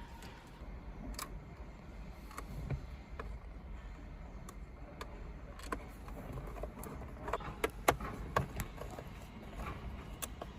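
Scattered light clicks and taps as the car screen is handled and screwed onto its stand, with a quicker run of clicks about seven to eight seconds in.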